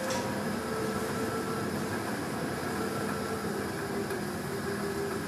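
Steady hum and hiss, with a faint low steady tone underneath and no distinct events.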